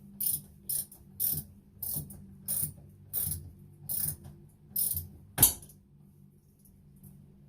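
Socket wrench ratcheting in about eight short, evenly spaced strokes as it tightens a plastic toilet-seat mounting bolt. About five and a half seconds in comes one sharp snap, the loudest sound: the bolt's breakaway bottom piece snapping off, the sign that it is tight enough.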